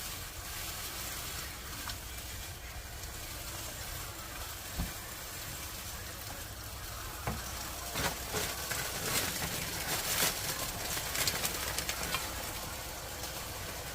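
Zucchini sizzling as it stir-fries in a pan, a steady hiss, with a single knock about five seconds in and a utensil scraping and clicking against the pan from about eight seconds in until near the end.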